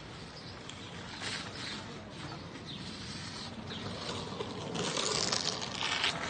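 Outdoor ambience: a steady hiss with a few short bird chirps. A louder noisy rush swells about five seconds in and fades near the end.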